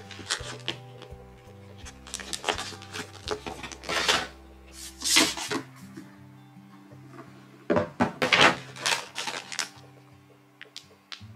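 Stiff translucent plastic folders and packaging rustling and crackling in irregular bursts as they are handled and lifted out of a cardboard box, over soft background music.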